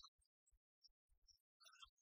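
Near silence, with faint broken fragments of sound cutting in and out.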